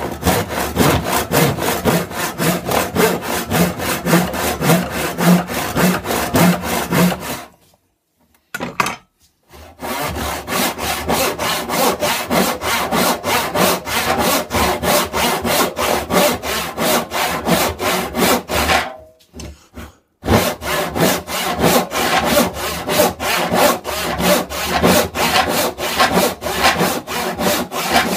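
Handsaw cutting through an old reclaimed wooden board, steel teeth rasping in quick, even back-and-forth strokes. The sawing stops briefly twice, about 8 and 19 seconds in, then carries on.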